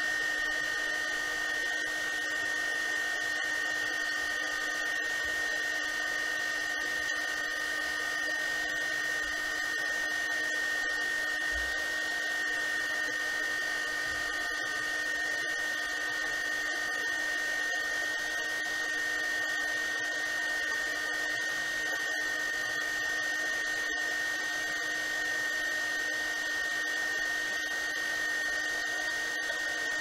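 KAIWEETS KEH01 mini heat gun running steadily on its low setting: the fan blowing hot air with an even rush and a steady high-pitched whine.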